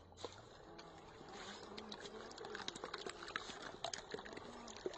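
Light splashing and wet crackling of shallow muddy water as an Austar SCX10 II clone RC crawler creeps through it, growing busier after about a second.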